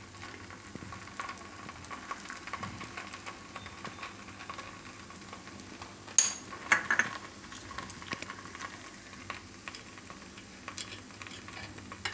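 Oil sizzling and crackling under semolina appe frying in a non-stick appe pan, with a few louder sharp clicks about six seconds in.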